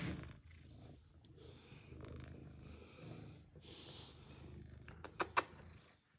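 Domestic cat purring steadily close by, a low rhythmic rumble with breathy swells. A quick run of sharp clicks about five seconds in is the loudest sound.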